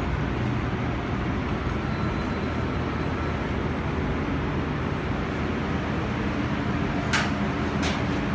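Steady whooshing hum of commercial kitchen fans and machinery, with two short sharp clicks near the end.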